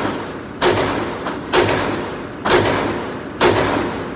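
Glock 19 9mm pistol firing at an indoor range: four shots about a second apart, with a fainter shot between the first two. Each shot leaves a long echoing tail.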